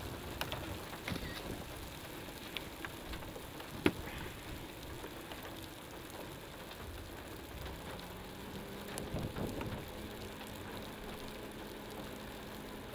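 Rain falling, with scattered drops ticking close by and one sharper click about four seconds in. A faint steady hum comes in around eight seconds.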